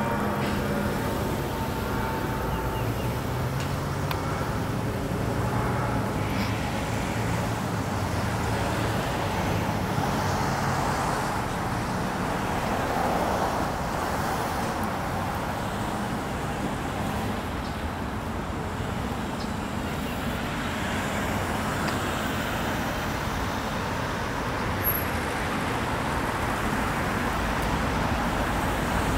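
Steady road traffic: vehicles passing, the noise swelling and fading as they go by, with an engine's low note in the first few seconds.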